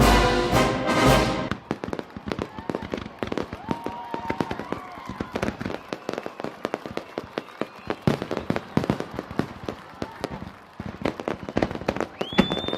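A brass-band march ends about a second and a half in. Then a salute of fireworks pops and crackles densely and unevenly, with a few short whistling tones, one higher near the end.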